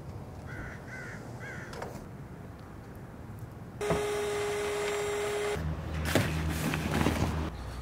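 Three short cawing bird calls over quiet open-air ambience. Then a steady single-pitched tone sounds for nearly two seconds, followed by a low hum with a few knocks.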